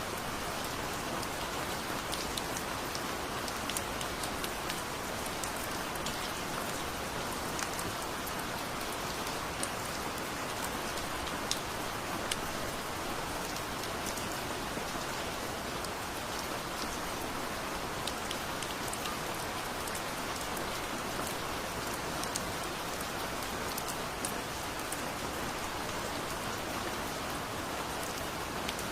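Heavy rain falling steadily, with a dense hiss and many sharp drop ticks scattered through it.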